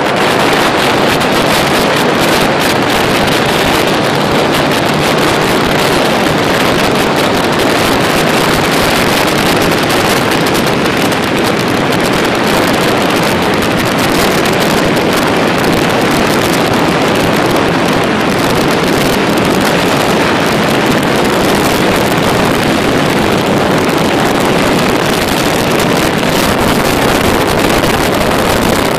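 Steady, loud rush of wind over the microphone of a motorcycle at motorway speed, with the motorcycle's running noise underneath.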